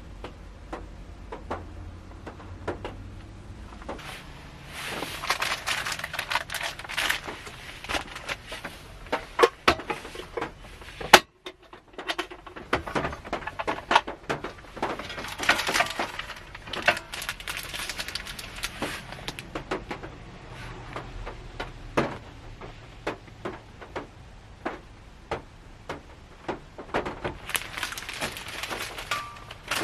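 Raindrops ticking irregularly on the car's roof and windows, heard from inside the cabin, with denser stretches of heavier dripping lasting a few seconds. The sound cuts out briefly about a third of the way in.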